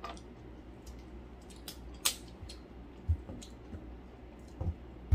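Chopsticks and tableware clicking against porcelain bowls and dishes during a meal: scattered sharp clicks, the loudest about two seconds in, then a few dull thumps in the second half.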